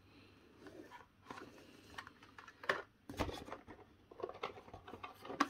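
Light clicks, taps and rustles of Hot Wheels blister-card packaging and cardboard being handled as cards are flipped through in a cardboard shipping box. The loudest few clicks come a little past the middle.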